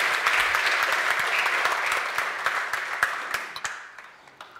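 Audience applauding, dense clapping that thins out and dies away over the last second or so.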